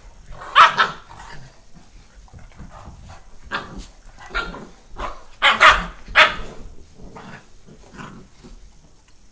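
Newfoundland mother and puppy play-fighting, with a run of short barks, about eight in all. The loudest come close together about five and a half to six seconds in.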